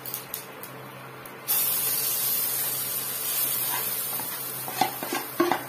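Grated bottle gourd and gram-flour batter hitting hot mustard oil in a frying pan, breaking into a loud, steady sizzle about a second and a half in. A few light clinks near the end.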